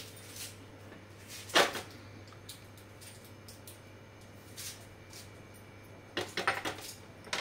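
Stainless steel pan gripper clinking against a small steel tadka pan on a gas stove: one sharp clink about a second and a half in, then a short run of rattling metal clicks near the end.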